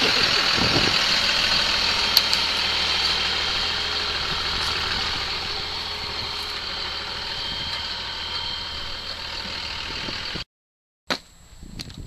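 Dodge Ram pickup truck engine running steadily, slowly growing fainter over about ten seconds, then cutting off abruptly near the end.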